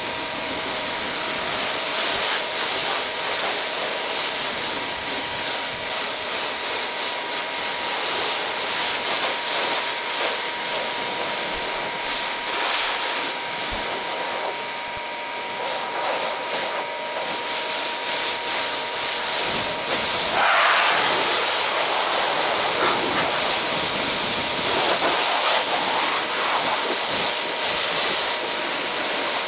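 Kranzle 1152TST pressure washer spraying: the high-pressure jet hisses and spatters steadily as it rinses foam off a car's body, with a thin steady tone under the hiss. It cuts in suddenly at the start and is briefly louder about twenty seconds in.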